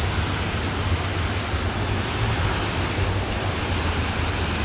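Steady rushing of water spilling over a concrete dam wall, with a low rumble underneath.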